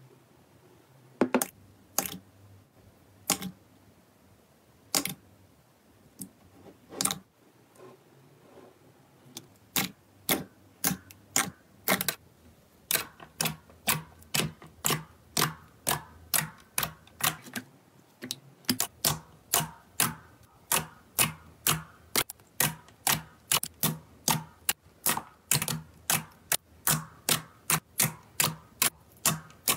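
Soft slime being poked and pressed with fingertips, each poke giving a sharp sticky pop. The pops are few and scattered at first, then from about ten seconds in come in a steady run of about two a second.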